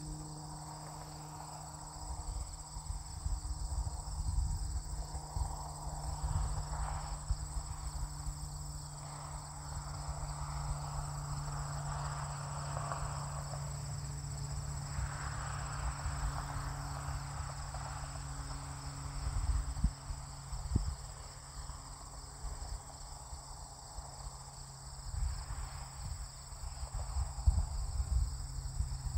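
Steady high chirring of insects such as crickets in a summer field, over a low uneven rumble and a steady low hum.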